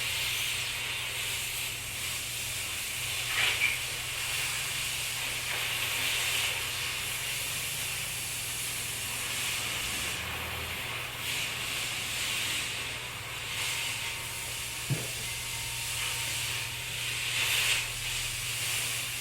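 Aerosol spray paint can spraying: a long continuous hiss that swells and eases a few times, with a short click about fifteen seconds in.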